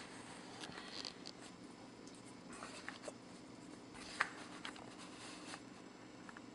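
Faint handling noise: small clicks and rustles of hands and a jacket sleeve on a glass beer bottle as it is held up and turned, with one sharper click about four seconds in, over a low steady room hum.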